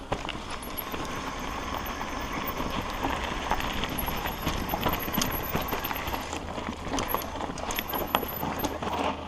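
Mountain bike riding down a dirt forest trail: a steady rush of tyres rolling over dirt and roots, with frequent rattles and knocks from the bike over bumps.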